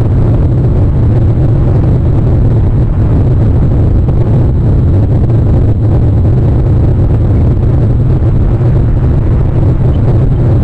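Steady, loud low rumbling noise with no distinct calls or knocks.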